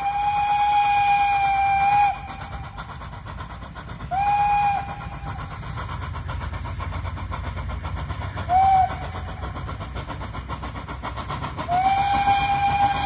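Steam whistle of locomotive 310.0134, a small ČSD class 310.0 tank engine, sounding on the approach: a long blast that ends about two seconds in, a short blast about four seconds in, a brief toot after eight seconds, and another long blast starting near the end. Between the blasts comes the low rumble of the train running in.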